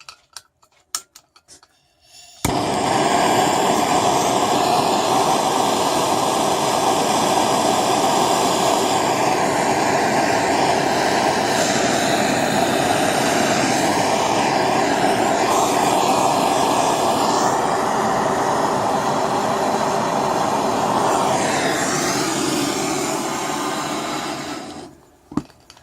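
Handheld gas torch flame running with a loud, steady hiss. It starts abruptly about two seconds in after a few light clicks and dies away near the end. The flame is heating an aluminum tube joint to weld or solder it.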